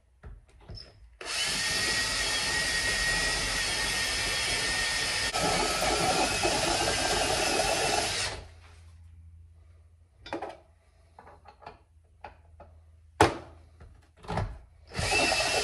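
Power drill running steadily for about seven seconds while drilling out the bottom of a Harley springer fork leg to take the rocker stud; its sound changes partway through, then it stops. A few clicks and knocks follow, and a similar steady noise starts again near the end.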